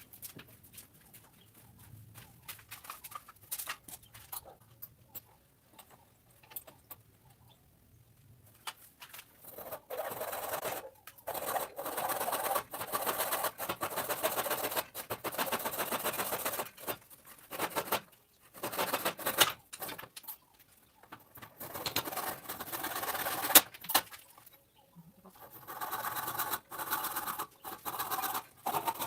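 Faint scattered taps, then from about ten seconds in, wood being rubbed and scraped in spells of a few seconds each with short pauses between them.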